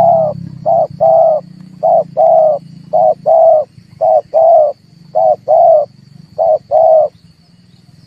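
Dove cooing: six repeats of a short coo followed by a longer coo, about one pair a second, stopping about seven seconds in. A faint steady high whine runs underneath.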